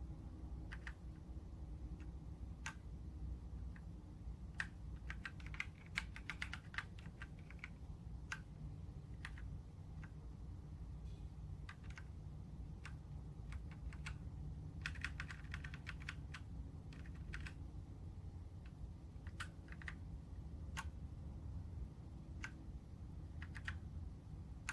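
Keys on an HP GK100 mechanical keyboard with brown switches being typed on. Scattered single keystrokes come with quick runs of typing about five and fifteen seconds in, over a low steady hum.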